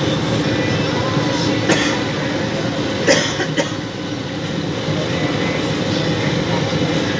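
Steady running rumble of a moving vehicle, with a couple of short knocks about two and three seconds in.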